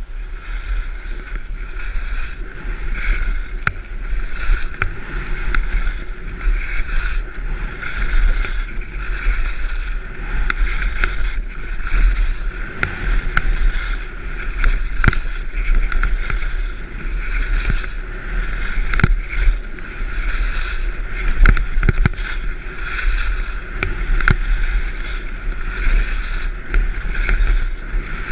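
Skis hissing and scraping over packed snow on a fast descent, swelling and fading every second or two, with scattered sharp clicks. Heavy wind rumble buffets the action camera's microphone throughout.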